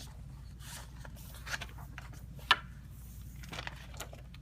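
Quiet handling noise: light scrapes and rustles with a few short clicks, one sharper about halfway through, over a steady low hum.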